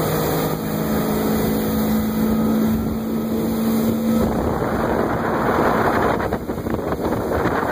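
Motorboat running under way on open water: a steady engine hum under the rush of wind on the microphone and water past the hull. About four seconds in the engine hum fades and the wind and water rush take over.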